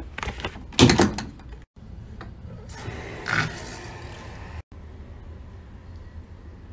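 Handling noises from a plastic bucket and hose fittings: a loud clatter about a second in, then a brief rushing, scraping noise around three to four seconds in, each snippet cut off abruptly.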